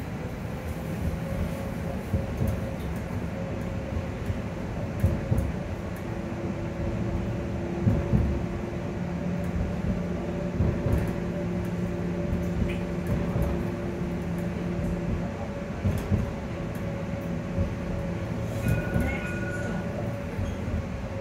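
Edinburgh tram's electric traction drive whining as the tram runs, several steady tones held over the low rumble of the car. The highest tone climbs a little in the first second, then holds, with scattered knocks from the wheels on the track.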